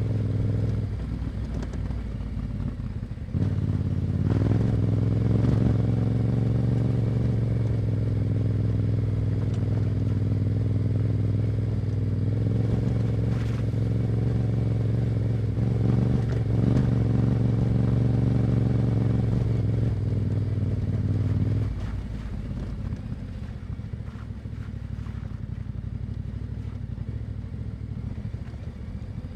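Yamaha Ténéré 700's parallel-twin engine through an Akrapovic exhaust, heard from the riding position, running at a steady engine speed. It eases off briefly near the start, then pulls steadily again. About three-quarters of the way through the engine note drops away to a quieter, low rumble.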